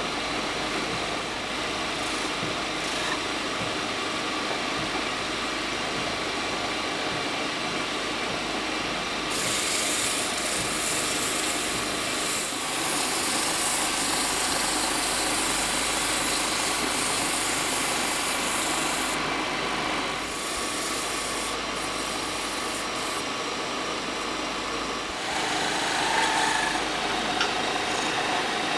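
Wood lathe running steadily while a spinning wooden vase stand is sanded by hand, a rubbing hiss that grows brighter from about a third of the way in until about two-thirds. Near the end a steel chisel cuts into the turning wood, louder and scraping.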